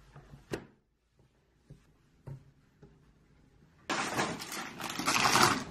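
A few light taps and knocks of things being handled on a desk, then from about four seconds in a loud rustling and crinkling of plastic packaging being handled.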